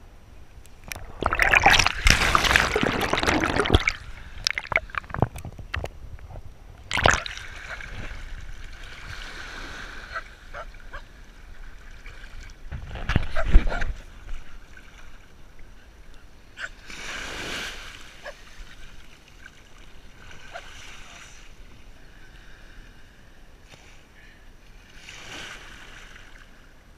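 Shallow seawater splashing and sloshing around a GoPro at the waterline, with a loud stretch of splashing a couple of seconds in and another short loud burst around halfway, then softer, scattered splashes.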